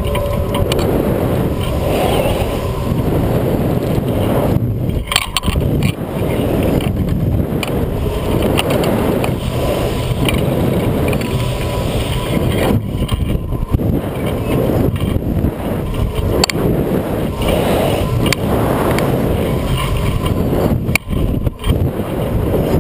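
Wind rushing over the microphone of a camera mounted on a Skyscraper spinning thrill ride as the seat swings through the air, a loud steady rumble with brief dips now and then.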